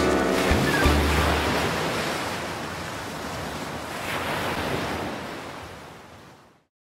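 The last notes of the outro music die away in the first second or so, leaving the rush of ocean surf that swells once more, then fades out to silence near the end.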